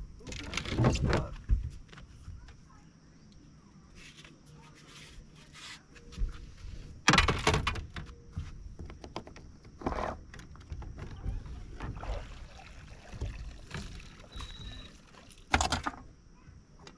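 Fishing gear being handled on a bass boat's deck: a string of clunks, knocks and rattles, the loudest about a second in, around seven seconds and near the end, with lighter clicking between.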